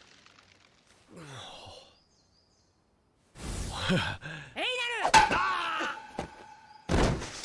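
Animated soundtrack: a man's straining shout and heavy impacts, a short held ringing tone, then a loud thunk near the end as a thrown axe strikes a tree.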